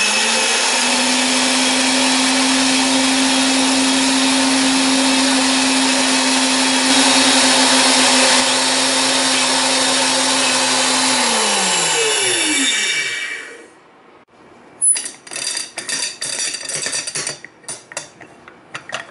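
Small high-speed grinding mill running with a steady loud whirr, its blade pulverising dried blood clam (akagai) into powder. About eleven seconds in it is switched off and its hum falls in pitch as the blade spins down. After a short pause come several metal clicks and clatters as its stainless-steel lid is handled.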